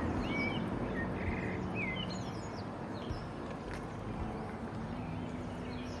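Small birds chirping in short, quick calls, busiest in the first couple of seconds, over a steady outdoor background hum.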